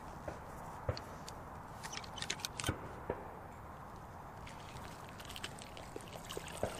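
Scattered clicks and rustles as a collapsible fabric dog bowl is set down on dry leaves and a metal water bottle is handled, then a faint steady trickle of water poured from the bottle into the fabric bowl for the last couple of seconds.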